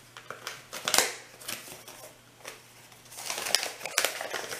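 Paper and plastic packaging being handled: scattered sharp crinkles, the loudest about a second in, turning into continuous crinkling and rustling from about three seconds in.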